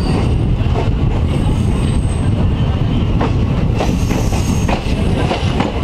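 Indian Railways Goa Express passenger coaches rolling along the track, heard close from an open coach doorway: a steady rumble of wheels with a thin, high wheel squeal on the curve. A run of sharp clicks in the second half as the wheels cross rail joints.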